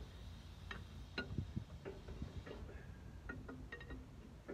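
Light, irregular metallic clicks and clinks from hand work on a 1926 Caterpillar Sixty tractor's engine as it is readied to be turned over by hand.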